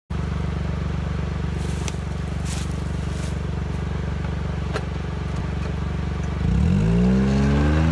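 John Deere Gator 825i UTV's three-cylinder gas engine idling steadily, then revving up about six and a half seconds in as the Gator pulls away.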